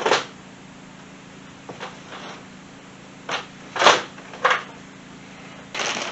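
Several short knocks and rustles, the loudest nearly four seconds in, over a steady low hum.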